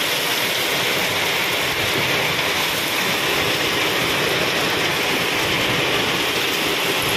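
Crushed stone sliding and pouring off the steel bed of a tipped tractor trailer, a steady, unbroken rushing hiss.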